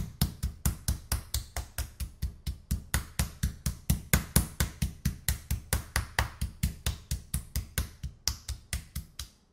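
Metal meat mallet pounding a raw chicken breast on a plastic cutting board: rapid, even blows, about four or five a second, that stop near the end. The chicken is being flattened and tenderised.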